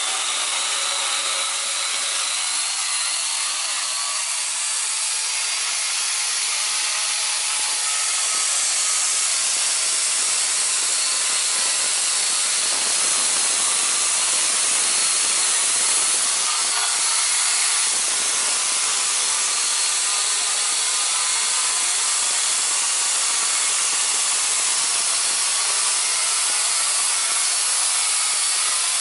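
A corded angle grinder and a small right-angle die grinder grinding the steel rails of an equipment rack at once: a steady, continuous high grinding hiss.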